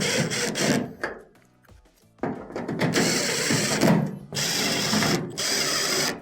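Power drill/driver running screws into the washer's rear bracket in several bursts, with a short pause about a second in.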